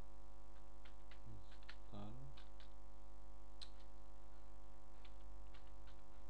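Computer keyboard keys clicking one at a time in slow, uneven typing, over a steady electrical mains hum; a brief low murmur about two seconds in.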